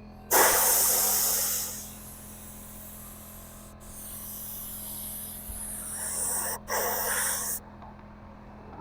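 Paint spray gun spraying clear coat as a loud hiss in two passes: a short one of about a second and a half, then a longer one of about three and a half seconds that cuts out twice for an instant.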